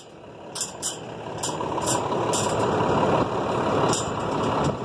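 Wind buffeting the microphone: a steady, rumbling rush of noise.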